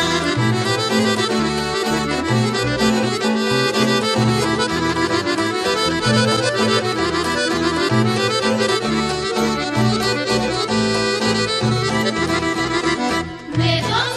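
Instrumental folk dance music with a steady pulsing bass beat and a melody in many held tones; it breaks off briefly just before the end.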